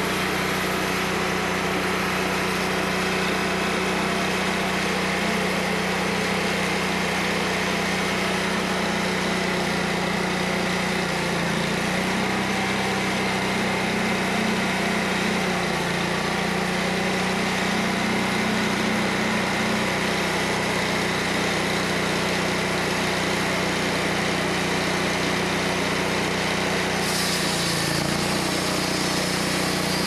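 TimberKing 2020 portable band sawmill running steadily as its blade cuts along a log, with the engine hum dipping briefly in pitch around the middle of the cut. A short hiss comes near the end.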